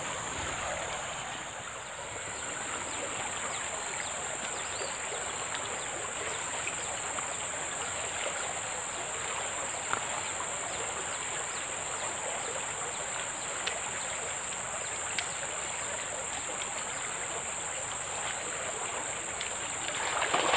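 Steady rush of flowing river water under a constant high-pitched insect drone, with a few faint ticks; the noise swells briefly near the end.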